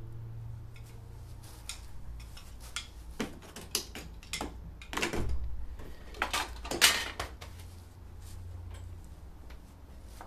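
Painting tools and a rag being handled and put down: a run of knocks, clinks and rustles, the loudest about seven seconds in, over a steady low room hum.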